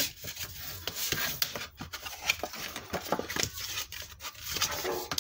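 Cardstock being folded along its score lines and creased with a bone folder: paper rubbing and scraping under the folder, with scattered short clicks and crinkles as the flaps are pressed down.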